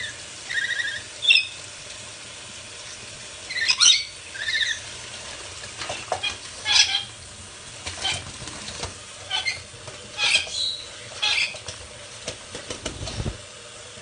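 Rainbow lorikeet bathing under a running tap: short bursts of wing-flapping and splashing in the water, over the steady rush of the tap. Buzzy squeaking chirps come near the start and again about four seconds in.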